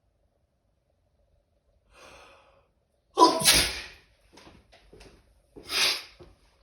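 A person sneezing: a drawn-in breath about two seconds in, then a loud sneeze about a second later, a few short faint sounds, and a second, quieter sneeze near the end.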